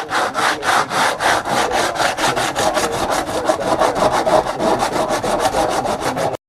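Sandpaper rubbing back and forth over body filler on a Fairway taxi's outer wing, a fast, even stroke of about five or six passes a second. It stops abruptly near the end.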